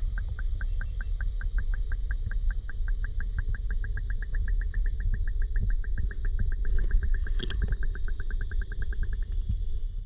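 Low steady rumble of a vehicle under way, with a rapid even ticking at about seven a second that stops shortly before the end.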